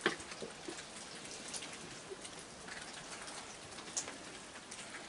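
Steady light rain pattering and dripping, with a sharper tick just at the start and another about four seconds in.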